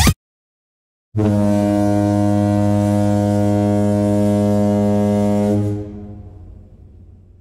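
A deep foghorn-style horn sound effect: one steady low blast starting about a second in, held for about four and a half seconds, then dying away.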